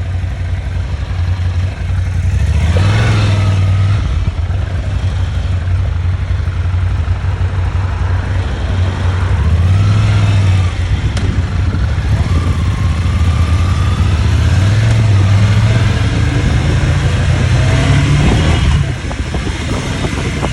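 A vehicle's engine running under way over rough ground, its pitch rising and falling several times as it is revved and eased off, with a steady rush of road and wind noise.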